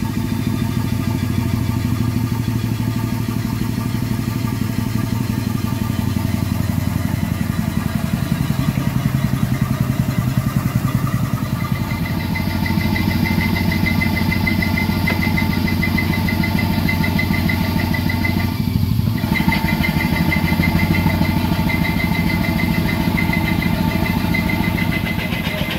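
Ashworth Parker closed-crankcase steam engine running steadily with a fast, even beat, driving a shunt-wound DC dynamo. A thin high whine joins about halfway, and the sound breaks off briefly about three quarters of the way through.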